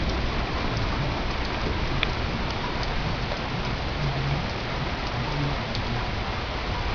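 Heavy rain falling steadily in a thunderstorm, with a low rumble underneath.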